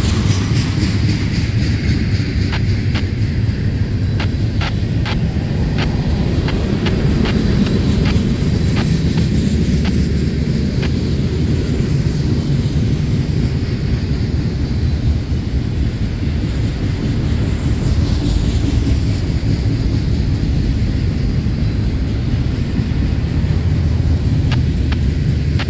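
Freight cars rolling past close by: a steady low rumble of steel wheels on rail, with scattered sharp clicks from the wheels and running gear, most of them in the first half.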